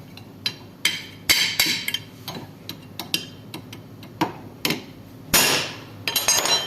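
Repeated irregular metal-on-metal hammer strikes with a short ring, knocking a worn ball bearing off the rotor shaft of a window AC fan motor. The loudest blow lands about five seconds in, followed by a quick flurry of lighter taps.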